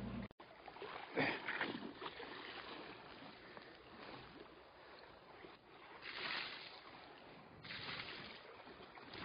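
Faint sea water washing and sloshing, with a few swells that rise and fall.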